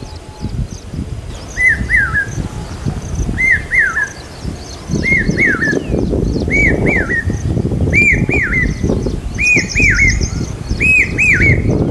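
Common hawk cuckoo (brain-fever bird) calling: loud whistled two-note phrases repeated about every one and a half to two seconds, each phrase pitched a little higher than the last. Smaller birds chirp faintly and higher, over a low background rumble.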